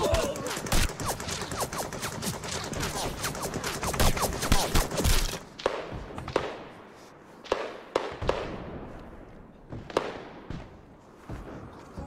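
Heavy battlefield gunfire: many shots overlapping in a dense barrage for about five seconds, then thinning to scattered single shots, each with an echoing tail.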